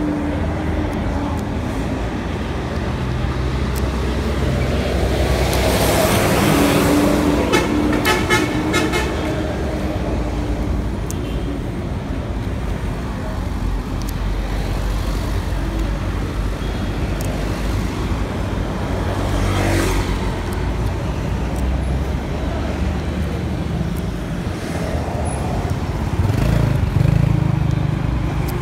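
Street traffic: vehicles passing on the road in a steady wash of road noise. One passes close and loud about six to nine seconds in, and another swells near the end.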